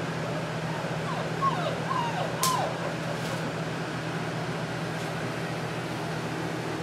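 Puppies yipping as they play-fight: about four short, high, sliding yelps a second or so in, with a sharp knock after them, over a steady low hum.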